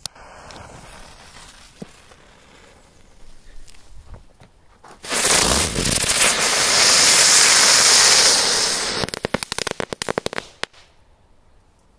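A small 'rozochka' firework burning with a loud, sustained hiss for about four seconds, then breaking into a quick run of crackling pops before it stops suddenly.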